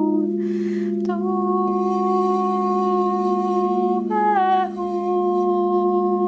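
Crystal singing bowls ringing in a steady low drone while a woman sings long held tones over them, changing pitch about a second in and again around four seconds in, with a breath drawn in between notes about half a second in.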